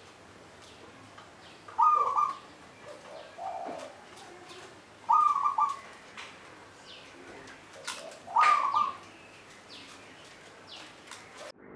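Local-strain zebra dove (perkutut) singing: three short bursts of its staccato cooing song, about three seconds apart, with a fainter lower coo between the first two.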